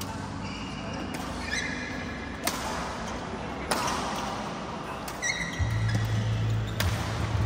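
Badminton rally: rackets striking the shuttlecock with a few sharp smacks, and court shoes squeaking briefly on the floor between shots.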